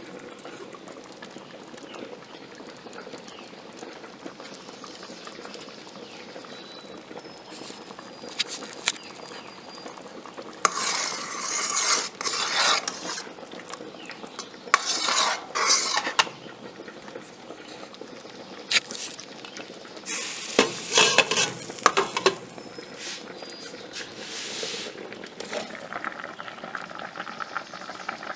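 Kitchen work at a stove: light clinks and clatter of metal utensils and cookware, with four bursts of rustling, scraping noise a second or two long.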